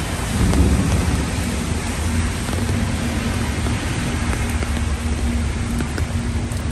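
Heavy rain pouring onto a wet street and pavement: a dense, steady hiss with a deep rumble underneath that swells briefly about half a second in. A low steady hum joins about two seconds in, from a red double-decker bus passing on the wet road.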